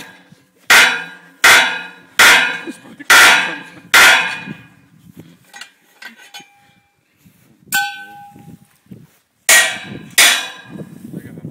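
Sharp metal-on-metal clangs on a steel lattice mast being unbolted with a large open-end wrench and pipe extension. Five clangs come in quick succession, about 0.8 s apart, each ringing off briefly. A single ringing ding follows past the middle, then two more clangs near the end.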